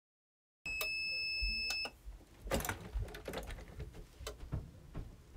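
Digital heat press timer sounding one steady, high electronic beep for about a second, signalling that the timed press is done. It is followed by several short knocks and clunks as the press handle is worked.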